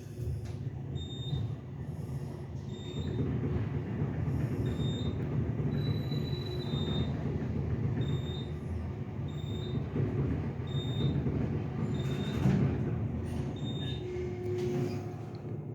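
Elevator car travelling in its shaft: a steady low rumble, with short high beeps every second or two.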